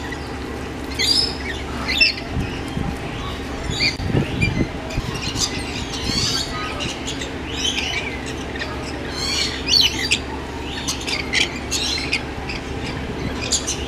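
Rainbow lorikeets squawking and chattering: many short, shrill calls, coming irregularly over a steady low hum.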